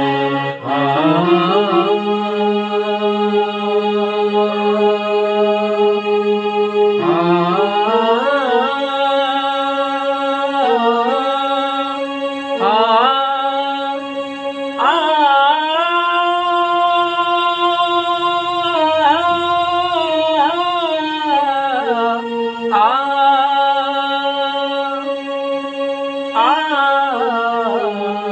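Harmonium playing a devotional bhajan melody in long held notes, with a voice singing along that glides between notes several times.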